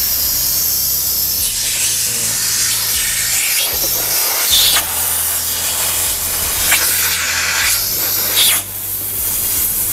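Car AC refrigerant hissing steadily through the service couplers and hoses as the high- and low-side valves are opened for recovery, with a low hum underneath and a few short whooshes.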